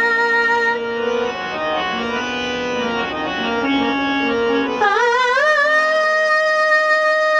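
Hindustani classical female vocal with harmonium and tanpura accompaniment. A held sung note ends about a second in, the harmonium plays a short stepping phrase on its own, then the voice slides up into a long held note with a slight waver about five seconds in.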